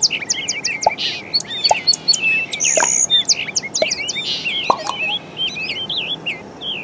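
Many small birds chirping and twittering at once, a dense chorus of short, quick calls that overlap throughout.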